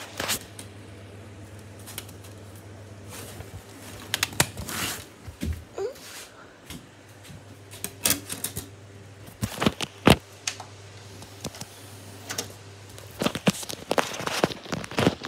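Plastic DVD case and disc being handled and loaded into a Blu-ray player: scattered clicks, taps and knocks, the loudest about ten seconds in, with more quick clicks near the end. A low steady hum runs underneath and fades out a little before the end.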